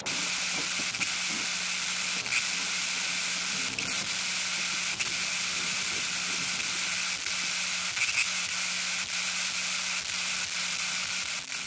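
Steady hiss with scattered faint clicks and a low steady hum underneath.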